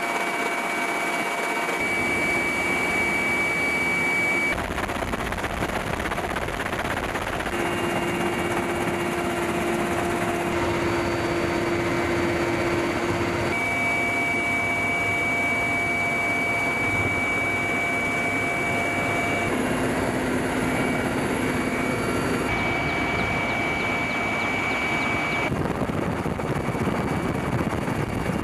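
Military helicopter engine and rotor noise: a steady rush with a high whine, changing abruptly every few seconds as the footage cuts from shot to shot.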